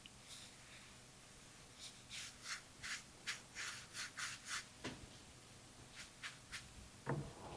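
A watercolour brush rubbing in a run of short, soft strokes, about three a second, as paint is picked up and laid on. A soft knock near the end.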